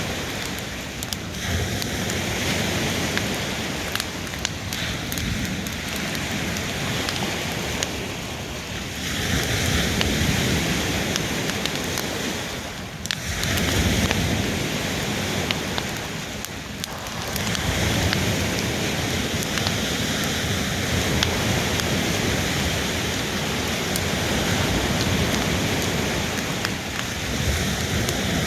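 Waves of Lake Superior washing onto the shore, a steady rushing that swells and eases every few seconds.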